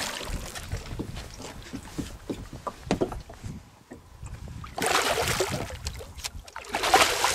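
Hooked largemouth bass thrashing and splashing at the surface beside the boat, in two loud bursts: about five seconds in and again near the end.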